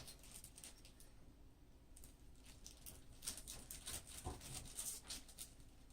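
Faint, scattered light clicks and taps of small computer hardware being handled, coming more often in the second half.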